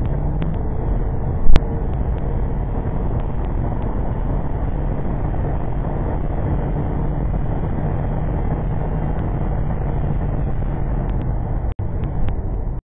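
Wind buffeting and tyre noise at speed on a wet track, picked up by a camera mounted on the back of a Skoda Yeti 4x4 diesel running at about 50 to 65 mph, with a steady low drone underneath. A single sharp loud knock about one and a half seconds in, and the sound drops out for a moment near the end.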